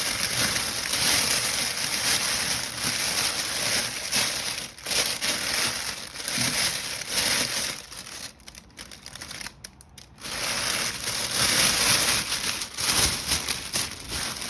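Cellophane gift bag crinkling loudly as it is handled and opened out, easing off briefly about eight seconds in before the crinkling picks up again.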